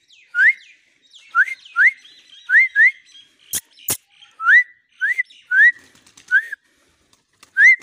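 About ten short, sharp, rising whistles in a row, calling a hand-tamed pigeon down onto the hand. Two sharp clicks come a little past the middle.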